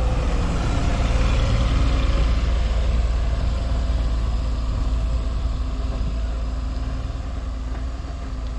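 Jelcz Salus M101I city bus pulling away along a dirt track: engine and tyre noise, loud as it passes close by, fading gradually as it drives off.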